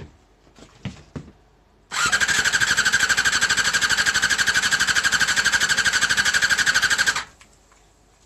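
Honda Jade's MC14E 250 cc inline-four engine being spun over by its electric starter for about five seconds, a fast, even pulsing that starts and stops abruptly, as in cranking for a compression test. A few light clicks and knocks come just before it.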